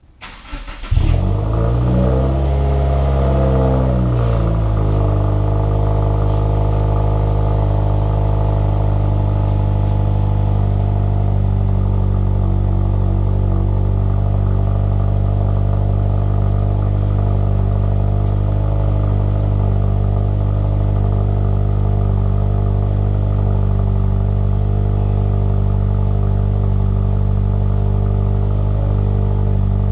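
2016 Subaru WRX's turbocharged flat-four starting up through a Nameless Performance resonated midpipe and axle-back muffler delete: it catches about a second in, flares briefly in revs and settles within a few seconds, then idles steadily.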